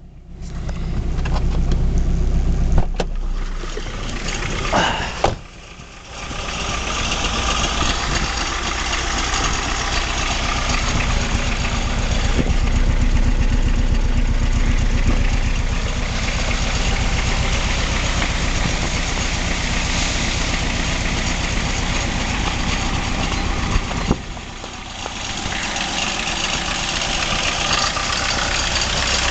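BMW E36 318tds four-cylinder turbodiesel engine running at idle. The owner hears an annoying noise from the front of the engine that sometimes comes up at idle and that he has not yet traced. There is a click about three seconds in, a short rising whine about five seconds in, and a brief drop in level about 24 seconds in.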